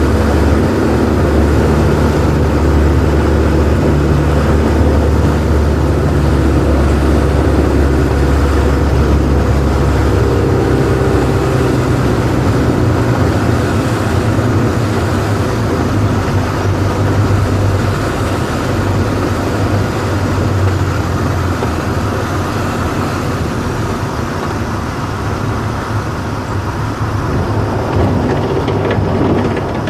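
Samba XXL light aircraft's engine and propeller running, heard inside the cockpit with wind noise, on the approach and landing; the engine note shifts about ten seconds in.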